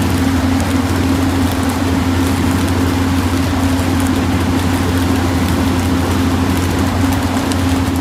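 Mobile flash butt welding machine flashing a rail joint: a steady loud hum from the welding set's power, with a continuous crackle of sparks over it.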